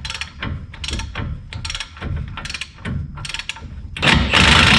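Hand ratchet wrench clicking in short bursts of strokes, then about four seconds in a loud power tool such as an impact wrench starts running.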